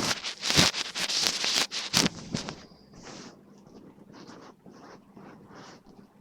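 A quick run of rustling, scratching noises, loud for the first two seconds or so, then fainter and more spaced out.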